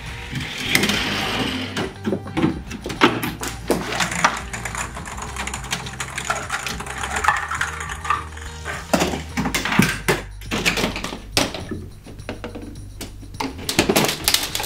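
Toy chain-reaction machine running: plastic and wooden toy parts knocking, rolling and falling, heard as an irregular string of clicks and clattering knocks over background music.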